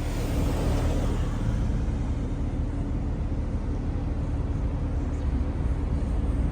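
Car driving at a steady pace: a low, even engine and road rumble with no revving.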